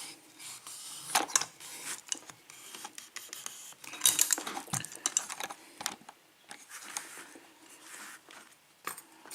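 Small metallic clicks and rattles from a brass padlock and lockpicking tools being handled, with a cluster of clinks about a second in and a busier patch around four seconds.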